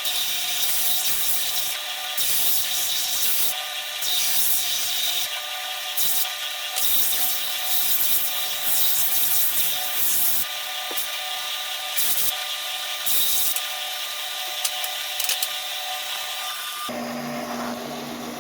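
Small power tool running steadily while it sands wood: a constant motor whine with a rasping hiss that swells and fades as the tool is pressed on and lifted. About 17 seconds in it cuts to a different, lower steady hum.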